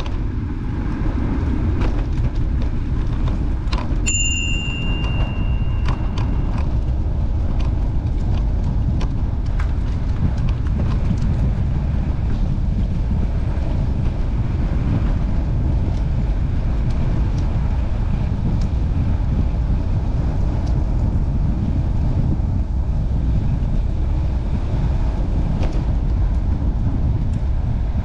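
Steady wind rumble on the microphone during a bicycle ride, with scattered light clicks and ticks. A bicycle bell rings once about four seconds in, its tone fading over a couple of seconds.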